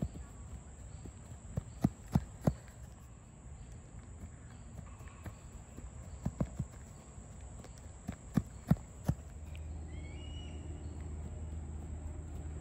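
Quick footsteps on artificial turf: sneakers planting and pushing off in short bursts of three or four sharp steps during a defensive shuffle drill. A steady low rumble comes in near the end.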